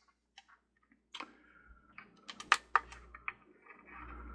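A scatter of light, quick clicks and taps from the buttons of a dimmable work light as its brightness is turned up, a few presses louder than the rest.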